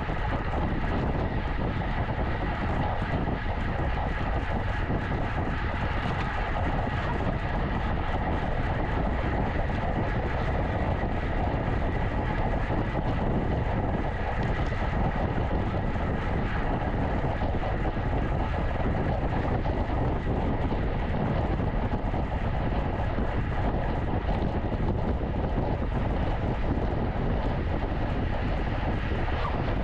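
Steady rushing wind noise on the microphone of a racing bicycle's rider-carried camera, with the bike moving at speed; it stays even, with no breaks or single loud events.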